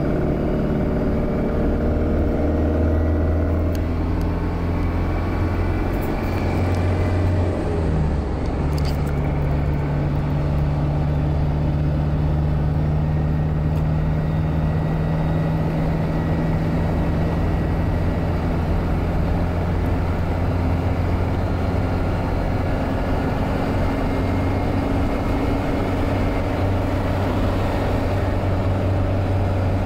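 Steady highway cabin noise inside a moving vehicle: a low engine drone with wind noise from an open sunroof, and little tyre noise from the Cooper Discoverer STT Pro tyres. The engine note shifts briefly about eight seconds in.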